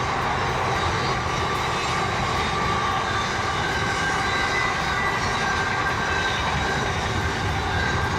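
Long freight train rolling past, a steady rumble of wagons on the rails with faint high wheel-squeal tones above it.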